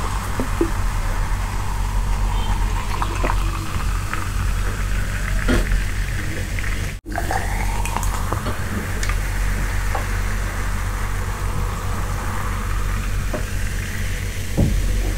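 Coca-Cola poured from a plastic bottle into a glass, the carbonated drink fizzing steadily as the glass fills, with a brief break about seven seconds in.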